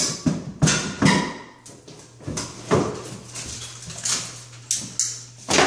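Fiberglass tub-surround panel cracking and snapping as it is broken and ripped off the wall with a hammer and by hand: a run of about a dozen sharp, irregular cracks and knocks.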